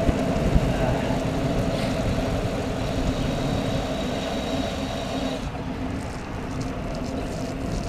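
Steady road and wind noise from a bicycle riding on a wet street, heard from a handlebar-mounted camera, with a faint steady hum under it that eases off about five seconds in.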